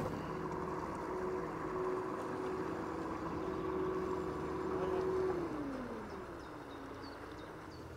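A passing motor boat's engine running at a steady pitch, which falls over about a second some five seconds in as the sound eases off.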